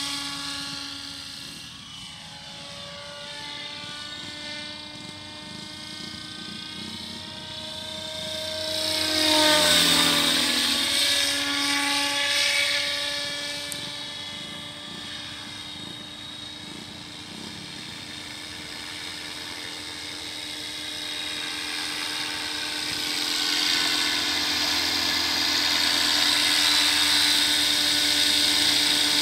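Electric radio-controlled helicopter on T-Rex 700 mechanics flying: a steady whine from the electric motor and gears over the rotor noise. It is loudest as it passes close about ten seconds in, where the pitch bends, then grows louder again near the end as it comes back in.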